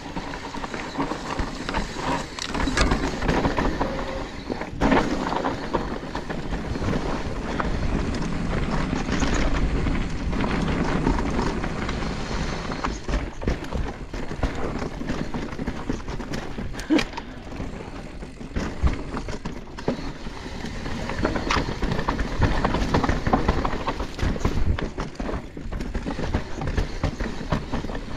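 Mountain e-bike ridden down a rough dirt trail: steady tyre noise over the ground, broken by frequent sharp knocks and rattles from the bike over bumps.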